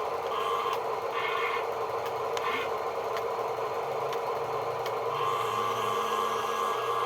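Small electric motors of a toy excavator whirring in short runs that start and stop several times, most steadily near the end, over a constant hum, with a few light clicks.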